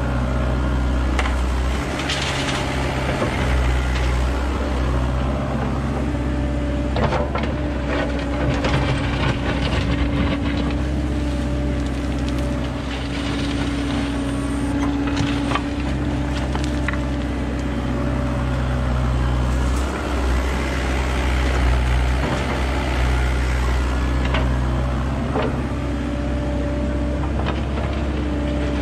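Kubota mini digger's diesel engine running steadily under load, its note rising and falling as the boom and bucket work. The bucket scrapes and knocks through soil, roots and stones.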